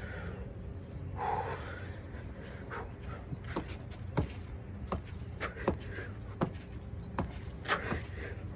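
Trainers landing on an exercise mat during plank knee-tuck jumps: a quick run of sharp thuds from about three seconds in, about one or two a second. There is a breath about a second in.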